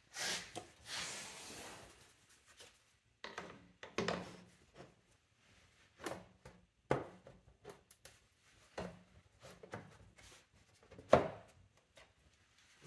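Plastic fan shroud being handled and fitted onto an aluminium radiator: rubbing and scraping at first, then a series of knocks and clunks as it is set in place, the loudest near the end.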